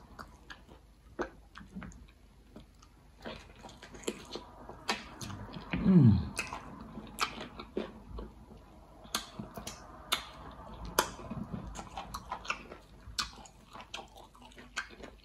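Close-up eating by hand: wet chewing, lip smacks and sharp mouth clicks as okra and egusi soup is eaten and fingers are licked. About six seconds in comes the loudest sound, a brief hum that falls in pitch.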